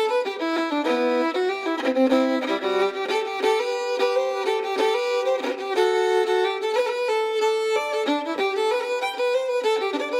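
Fiddle playing a quick Irish traditional tune, the notes changing several times a second with no bass underneath.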